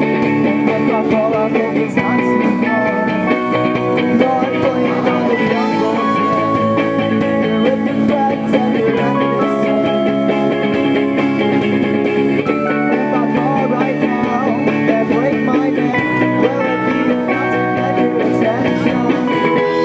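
A rock band playing live, led by electric guitar, at a steady loud level with held notes ringing over the strumming.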